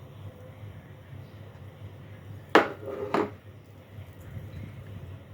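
Cutlery striking a plate twice while eating, two sharp clinks about half a second apart, a little past midway.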